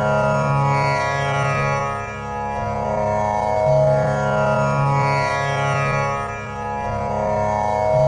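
Tanpura drone tuned to C#, its strings plucked in a slow repeating cycle that swells about every four seconds, the sustained tones ringing together.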